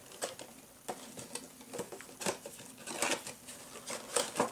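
A cardboard action-figure box and its clear plastic tray being handled and opened: scattered crackles, clicks and rustles, the plastic tray sliding out of the box near the end.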